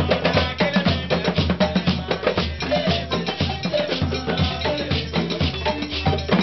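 Live Malian percussion music: a balafon, a wooden-keyed xylophone struck with mallets, playing short quick notes over drums in a fast, dense, steady rhythm.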